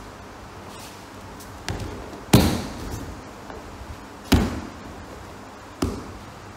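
Four thumps and slaps on training mats as an aikido partner is thrown down and lands, hands and body striking the mat. The loudest comes about two and a half seconds in.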